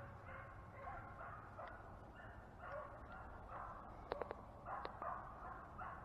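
A pack of beagles baying in the distance, many short repeated calls overlapping, as the hounds run a track. A few sharp clicks about two-thirds of the way through.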